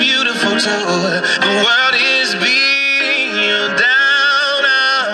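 A Viscount tube AM/FM table radio playing a music station through its small speaker: a song with a singer.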